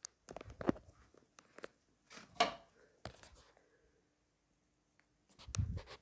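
Irregular rustling and knocking handling noise from a handheld camera being moved, with a heavier thump about half a second in and another near the end.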